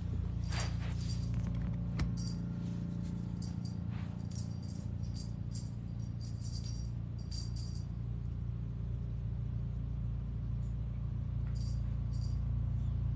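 Background music with a steady low bed, broken by short bursts of light metallic jingling several times in the first eight seconds and again near the end.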